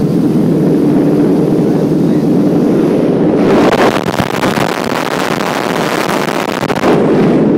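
Scheibe Motorfalke motor glider's piston engine droning steadily in flight, heard from inside the cockpit. From about three and a half seconds in, a loud rushing hiss covers it for some three seconds, then cuts off suddenly.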